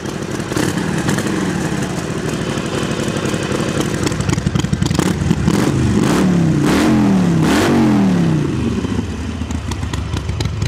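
Harley-Davidson Forty-Eight's 1200 cc V-twin idling with a deep, muffled exhaust note through its new exhaust system. It is given three quick throttle blips between about six and eight seconds in, then drops back to idle.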